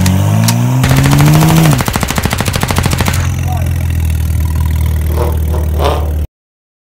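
BMW 335xi's twin-turbo straight-six blipped once, its pitch climbing and falling, with a rapid string of exhaust pops and crackles as the revs drop, then settling back to a steady idle. The sound cuts off abruptly near the end.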